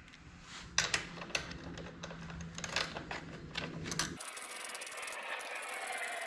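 A hand tool working the nuts off a snowblower's lower sheet-metal shield: scattered metal clicks and knocks, then a denser, steady mechanical whirring from about four seconds in.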